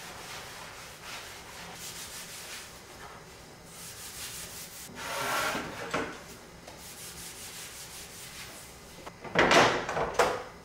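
A cloth rubbing over wooden trays on a wooden table in repeated wiping strokes, louder for about a second a little past the middle. Near the end comes the loudest sound: wood scraping and knocking as the trays are stacked.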